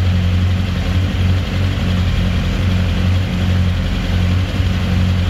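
2007 Yamaha YZF-R1's inline-four engine idling roughly, the idle wavering and stumbling unevenly instead of holding steady.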